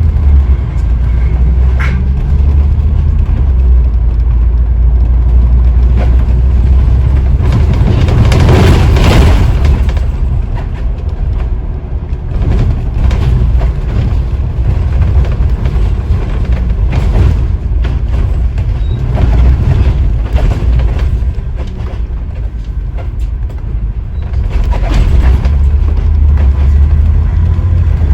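Scania OmniDekka double-decker bus on the move: a steady diesel engine and road rumble with body rattles. A rushing noise swells up and fades about eight to ten seconds in.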